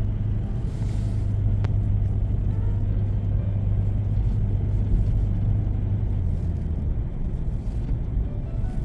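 Steady low engine and road rumble of a moving car, heard from inside the cabin, with one short click about two seconds in.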